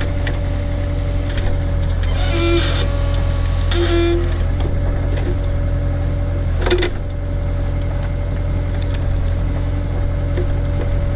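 Case/Davis D100 backhoe engine running steadily under hydraulic load as the bucket digs at a stump. Two short hissing squeals come about two and four seconds in, and a single sharp clunk comes a little past halfway.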